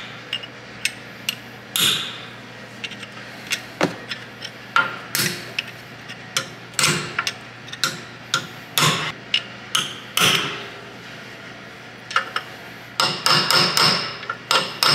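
Hammer striking a steel punch set against the rear axle nut: sharp metallic taps staking the nut's collar so it won't loosen by itself. The strikes come singly at uneven gaps of about a second, then in a quicker run near the end.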